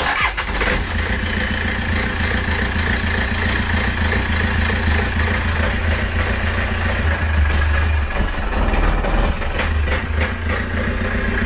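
Yanmar 4JH2E four-cylinder marine diesel starting at once and settling into a steady idle. It catches right away after a fuel filter change and bleeding, the sign that the air has been cleared from the fuel line.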